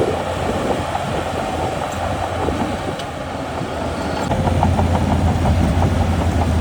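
Heavy diesel earthmoving machinery running with a deep engine drone and metallic clatter, getting louder about four seconds in as the engine takes on load.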